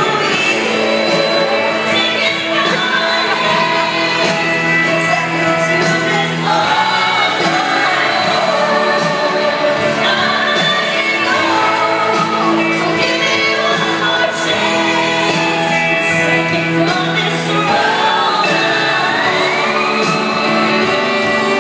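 Live concert music heard from the seats of a large arena: a woman sings lead over a full band through the PA, her melody rising and falling in long held lines over steady band chords.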